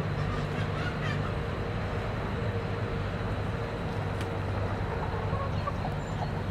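Chickens clucking faintly over a steady low mechanical hum.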